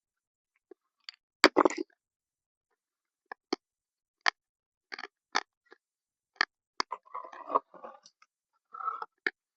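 Irregular sharp clicks and knocks, with short scraping rustles, as an old radio speaker's parts are handled and pried at. The loudest knocks come about a second and a half in, and the scraping comes near the end.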